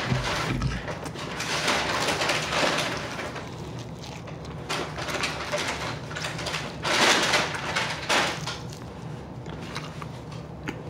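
Close-miked eating of fried chicken wings: chewing and mouth sounds, with the crisp breading crackling as the wings are pulled apart by hand. There are louder crackly bursts about seven and eight seconds in.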